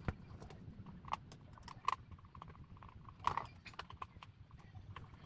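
Irregular light clicks and knocks of plastic electric-fan parts and screws being handled during reassembly, with a few louder knocks about two and three seconds in.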